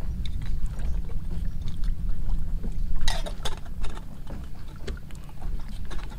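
Small metal kettle being handled: light clinks and knocks of its lid and handle, with a cluster of sharper clinks about three seconds in, over a steady low rumble.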